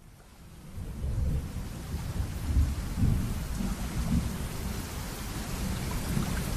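Steady rain with low rolling thunder, fading in over the first second, the thunder swelling a few times.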